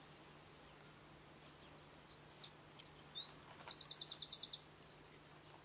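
High-pitched bird calls: scattered thin chirps and squeaks from about a second in, a fast run of about ten quick notes near the middle, then a few more chirps.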